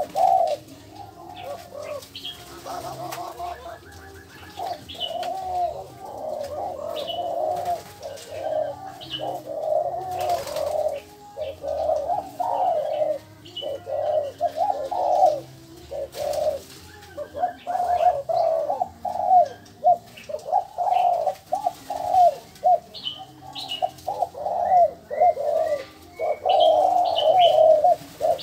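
Doves cooing over and over, several calls overlapping almost without a break, with short high chirps from small birds here and there.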